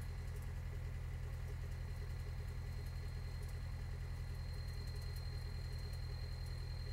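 Toyota 22RE 2.4-litre four-cylinder engine idling steadily with an even, pulsing beat. The owner suspects the knocking it makes comes from a worn timing chain or a rod knock.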